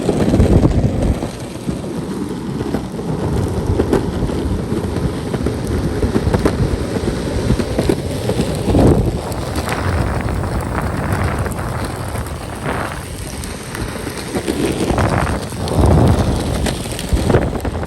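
Wind rushing and buffeting over the microphone, with the rumble of skateboard wheels rolling on pavement, from an electric longboard being ridden.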